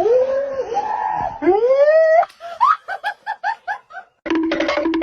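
A person laughing hard in a high pitch: long rising squeals, then a quick run of short 'ha-ha-ha' bursts. Near the end it cuts to music with steady tones.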